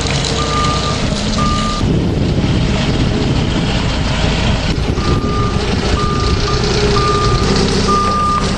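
Telehandler's diesel engine running with its reversing alarm beeping about once a second; the beeping stops for about three seconds partway through, then resumes.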